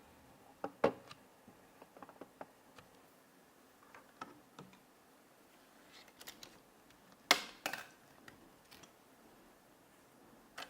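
Scattered light clicks and taps of PC hardware being handled, with a sharper knock about a second in and two louder knocks about seven seconds in.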